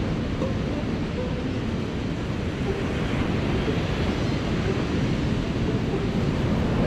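Pacific Ocean surf breaking on a sandy beach, a steady wash of waves, with wind rumbling on the microphone.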